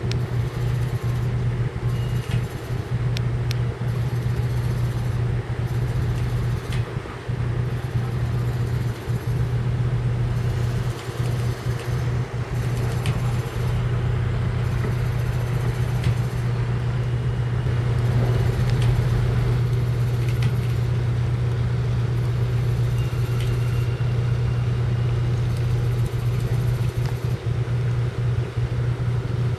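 Training ship Shirochidori's engines running at the quay with a steady low hum.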